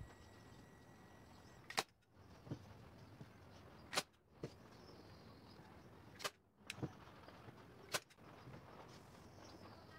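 Hand-operated staple gun driving staples through upholstery cover material into a plywood seat base: four sharp snaps about two seconds apart, most followed by a softer click about half a second later.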